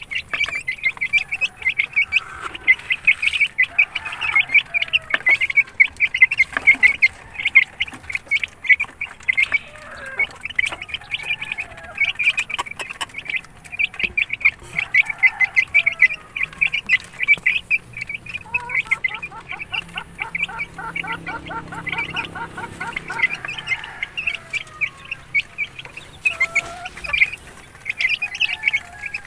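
A flock of young game fowl chicks peeping continuously while they feed, many short high peeps a second. About nineteen seconds in, a quick run of lower repeated notes joins them for a few seconds.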